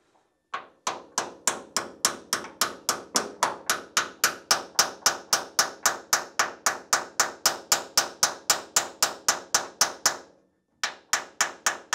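Hammer tapping a new hinge pin into a Porsche 911 door hinge: rapid, even strikes about four a second. The strikes stop briefly about ten seconds in, then a few more follow.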